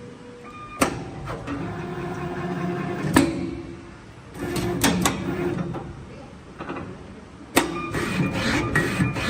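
CNC automatic channel letter bending machine at work: its motors whir in spells of a second or two, broken by sharp mechanical clicks and knocks, five of them, two in quick succession midway.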